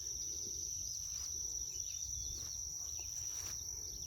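Steady, high-pitched chorus of insects droning without a break, with a few faint bird chirps over it.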